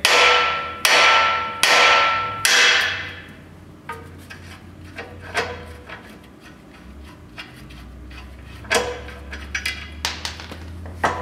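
Hammer blows on the steel steering knuckle of a Dana 44 front axle, driving the old tie rod linkage loose. Four heavy, ringing strikes come about a second apart, then lighter taps and a few sharper knocks.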